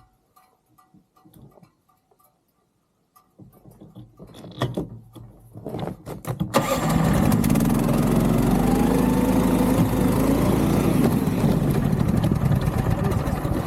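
After a few quiet seconds, the Snowdog's small engine comes up and, about halfway in, suddenly runs loud at high revs. Its pitch climbs, then holds: the throttle is stuck wide open.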